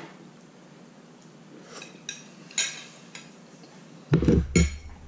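Fork clicking and scraping against a dinner plate a few times. About four seconds in come two loud, dull thumps.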